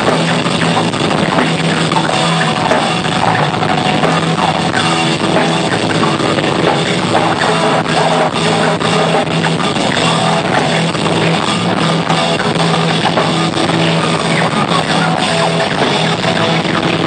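Live rock band playing loud and unbroken, with a drum kit and electric guitar.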